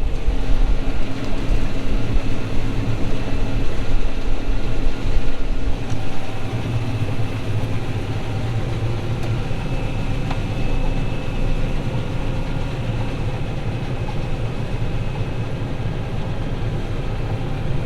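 Combine harvester's diesel engine running steadily, with a low hum and a faint steady whine above it. It is somewhat louder for the first six seconds or so, then settles.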